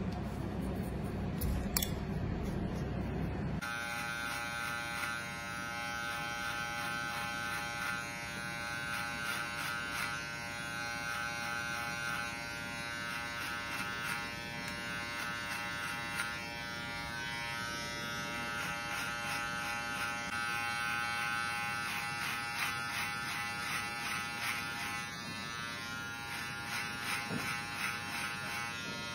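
Barber's scissors snipping briefly, then from about four seconds in an electric hair clipper runs with a steady buzz, cutting short hair over a comb.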